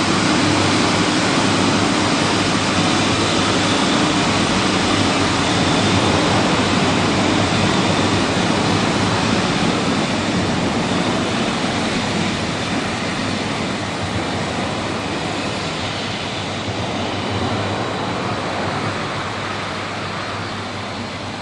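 EF65 DC electric locomotive: a steady rushing rumble with a low hum beneath, slowly fading over the last several seconds.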